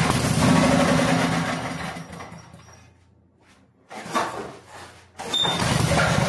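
The 8 hp Briggs & Stratton engine of a Coleman 4000-watt generator is pull-started. It fires and runs for about two seconds, then winds down and dies. After another pull about four seconds in, it catches and runs steadily. The mechanic blames the stall on the recoil starter dragging and braking the engine.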